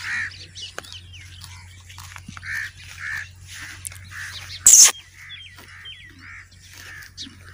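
A horse grazing close by, tearing and chewing short grass in irregular crunchy bites, with small birds chirping in the background. One loud, brief rush of noise comes a little past halfway.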